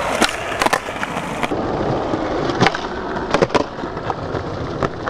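Skateboard wheels rolling on smooth pavement, with several sharp clacks as the tail pops and the board lands during inward heelflip attempts; two of the clacks come as quick pairs.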